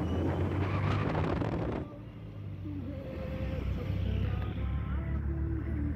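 Car driving through traffic. For the first two seconds the rush of passing vehicles and road noise is loud, then it drops abruptly to a steady low hum of the car's engine and tyres heard from inside the cabin.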